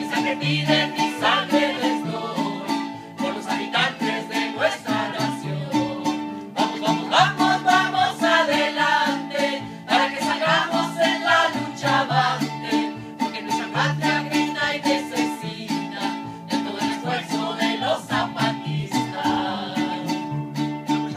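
A live acoustic folk band playing a song: strummed guitars and a piano accordion with a group of voices singing, on a steady strummed beat.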